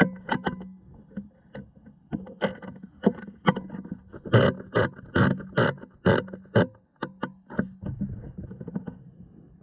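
Irregular run of sharp knocks and clicks, handling noise picked up by a camera clamped to an air rifle's scope as the rifle is swung about, thickest about halfway through at two or three a second, over a faint steady hum.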